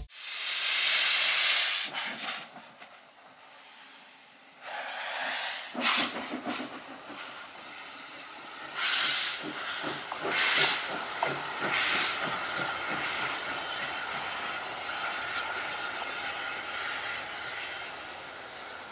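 Sri Lanka Railways Class B2B steam locomotive moving slowly with its cylinder drain cocks open, giving loud hissing blasts of steam, about one every second and a half in the middle of the stretch, over a steady softer hiss. A loud hiss at the very start is the loudest part.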